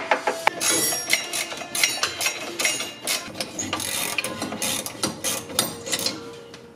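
Hand ratchet wrench clicking in quick, uneven runs while working the bolts on the exhaust Y-pipe, with metal clinks from the socket and pipe.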